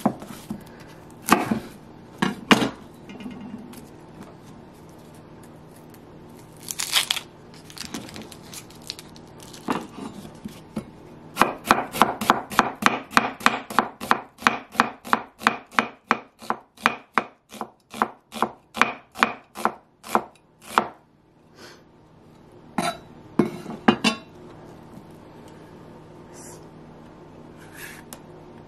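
Chef's knife chopping onion on a wooden cutting board. A few single cuts come first, then a run of quick, even strokes at about four a second for some ten seconds, then a couple more cuts.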